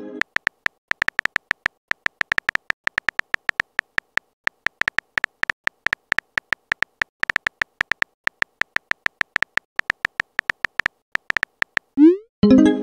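Simulated phone keyboard typing clicks, several a second, as a text message is typed out. Near the end, a quick rising swoosh and a short pitched pop: the message-sent sound effect.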